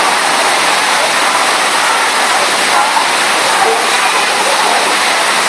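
Steady, loud rush of water from a FlowRider sheet-wave machine: a thin sheet of water pumped at speed up the sloped riding surface, churning into white foam at the crest.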